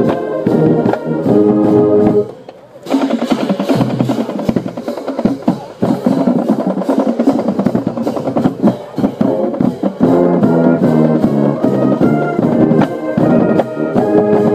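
School marching band playing: brass chords over snare and bass drums. A short break comes about two seconds in, then a drum-heavy passage, with the brass chords coming back strongly in the last few seconds.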